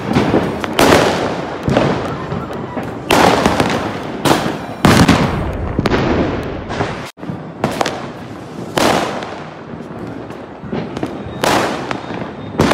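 Diwali firecrackers and fireworks going off all around, about a dozen loud bangs in quick succession, each trailing off into crackle.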